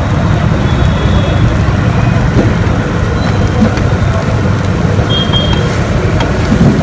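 Loud, steady low rumbling noise, with faint scraping or clatter near the end.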